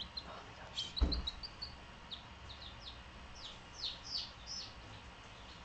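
Baby chicks peeping: a scattered string of short, high chirps, several of them falling in pitch. A dull thump about a second in is the loudest sound.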